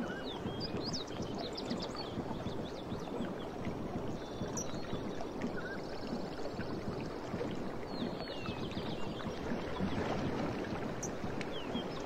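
Steady wash of sea water lapping, with small birds chirping in short runs now and then above it.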